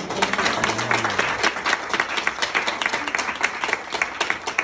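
A small audience of about thirty people applauding, the clapping starting suddenly and going on steadily.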